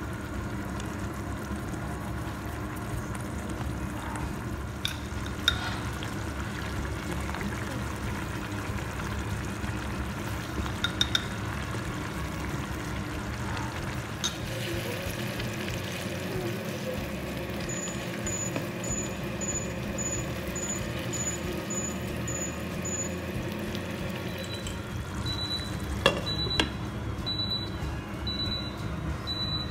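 A pan of minced-meat and tomato sauce simmering with a steady cooking noise and a few light clicks. About three-quarters of the way through comes a short clatter as the glass lid is set on the pan.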